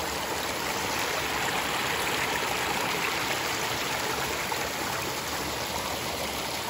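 A shallow, rocky mountain stream runs over and around stones and mossy rocks, making a steady rush and babble of water.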